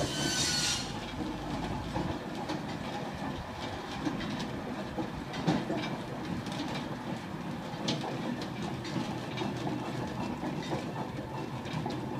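Clayton and Shuttleworth steam traction engine on the move, its motion and iron wheels clanking and knocking on the road. A hiss sounds in the first second.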